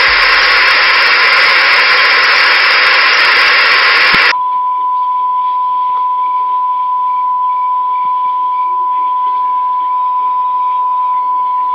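Loud television static hiss for about the first four seconds, then an abrupt switch to a steady high-pitched test-tone beep, the tone that goes with colour test bars.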